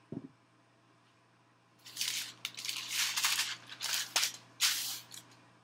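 A folded sheet of paper being shaken out and smoothed flat on a table: crinkling and rustling in several loud bouts, starting about two seconds in. A short low thump at the very start.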